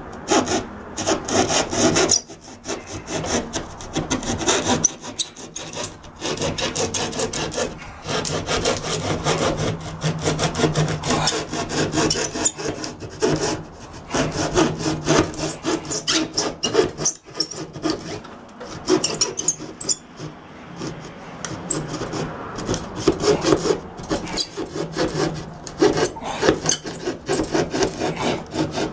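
A hand tool sawing through ceiling sheetrock (drywall) in fast back-and-forth scraping strokes, with a few short pauses between runs.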